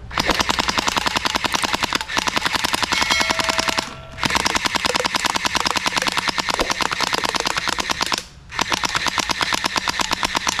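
Toy AK-47 blaster gun giving rapid machine-gun fire in three long bursts, with short breaks about four and eight seconds in.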